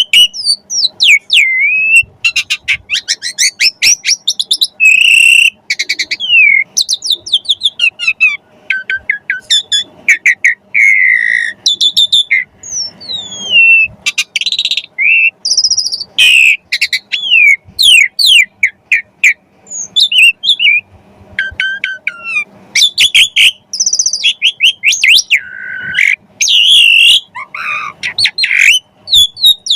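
Asian pied starling (jalak suren) singing a loud, varied song: quick runs of sharp chips, rattling trills and whistled glides with only short pauses. A faint steady hum lies beneath.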